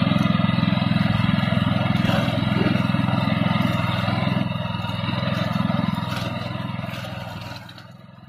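Small engine of a walk-behind flail-shaft grass cutter running steadily while it mows grass, with some clatter from the cutting shaft. The sound fades out near the end.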